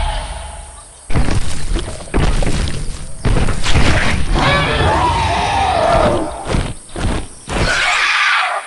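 Intro sound effects: a run of loud booming hits and crashes, the first ones about a second apart, with a pitched cry falling in pitch in the middle and several quicker sharp hits near the end.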